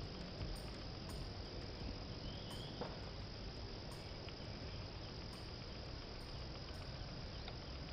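Steady high-pitched insect chorus in the countryside at dawn, over a faint low rumble, with a faint short chirp about two and a half seconds in.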